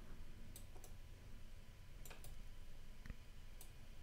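Faint computer mouse clicks, about six of them, some in close pairs, over a low steady hum.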